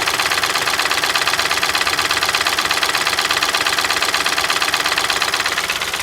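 Mahindra TUV300's three-cylinder diesel engine idling from a cold start, with a fast, even ticking 'tak' over the engine note. This is an intermittent knock that has persisted after the high-pressure fuel pump was replaced; at this moment it is at its milder level.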